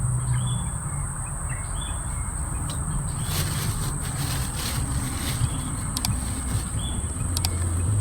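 Outdoor ambience with a steady high-pitched insect drone and a short chirp repeating about once a second, over a low rumble. A few faint clicks fall around the middle.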